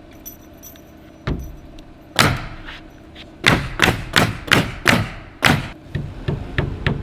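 Hammer driving nails into wooden roof framing: a couple of single blows, then a quick run of strikes at about three a second.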